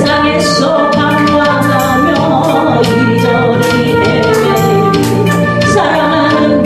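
Praise-worship song: singing over instrumental backing with a steady beat.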